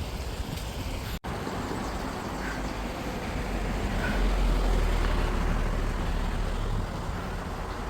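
Steady outdoor noise with a heavy low rumble that swells in the middle and eases off near the end, broken by a brief dropout about a second in.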